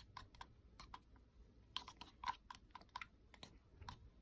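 Faint, irregular small clicks and taps from slime and its containers being handled and worked, about a dozen scattered through a few seconds.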